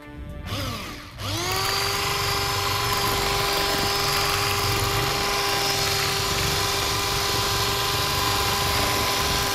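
Electric mixer starting up about a second in, its motor rising quickly to a steady high whine as it beats eggs, vanilla and sugar for a sponge cake batter.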